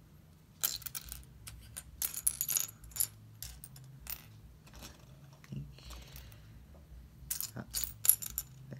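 Small plastic LEGO bricks clattering and clicking against a hard stone tabletop as hands pick through and sort loose pieces. The clicks come in several short bursts.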